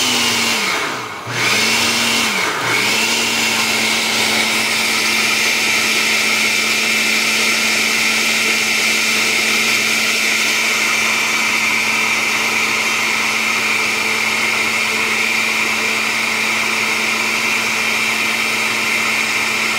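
Oster 14-speed countertop blender running, its motor churning a thick fruit smoothie in a glass jar. The motor slows and picks back up twice in the first few seconds, then runs at a steady pitch.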